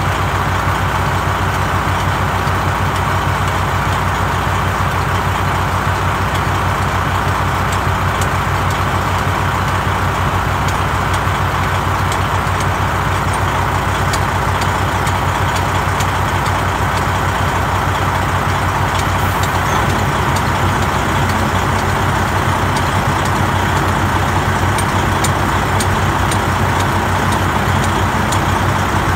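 Large diesel engine idling steadily, an even low rumble that does not change.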